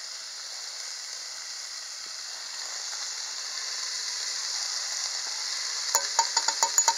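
Cut bacon sizzling in a hot cast iron Dutch oven, a steady high hiss. Near the end, a quick run of sharp ticks.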